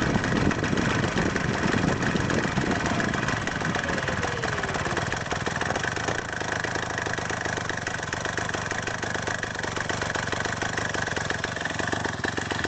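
Two-stroke single-cylinder Ural chainsaw engine mounted on a wheelchair, running steadily with a fast, even firing beat.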